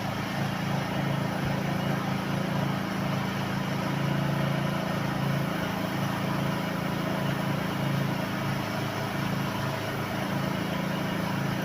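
Car engine idling, a steady low hum that does not change.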